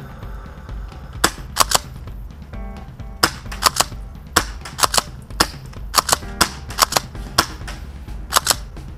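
A rapid series of sharp pops from Tokyo Marui M870 green-gas airsoft shotguns being fired, often in quick pairs, starting about a second in and running to near the end. Background music plays underneath.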